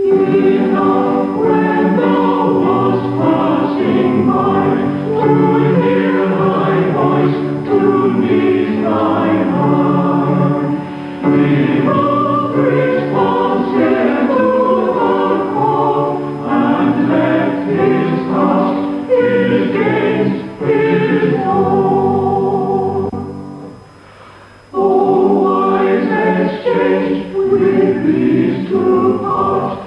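Church choir and choral society singing a hymn together, in sustained chords. The singing breaks off briefly about three-quarters of the way through, then starts again.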